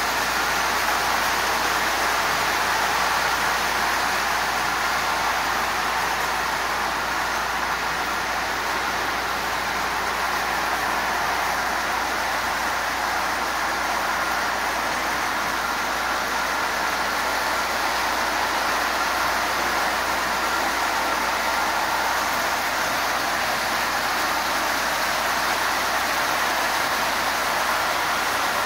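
Marx tinplate toy trains running at a slow constant speed on tinplate track, a steady, unbroken running noise from their motors and wheels.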